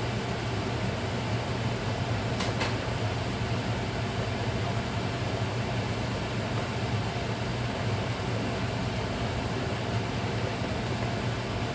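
Steady hum and hiss of an over-the-range microwave's vent fan, with a pot of spaghetti water at a rolling boil below it. One short click about two and a half seconds in.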